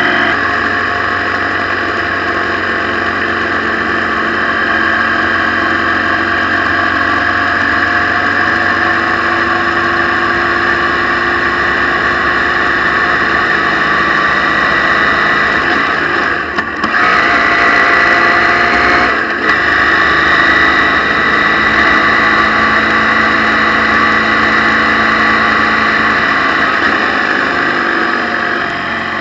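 Motorcycle engine running at a steady speed while riding on a wet road, with steady wind and road noise, broken by two short dropouts about 17 and 19 seconds in.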